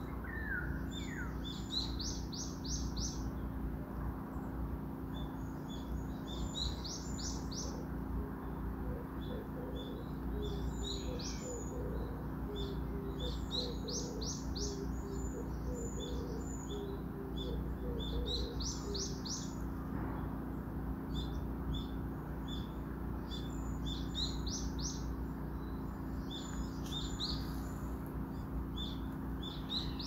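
Small songbird singing: quick runs of four to six high chirps, repeated every two or three seconds, over a steady low hum.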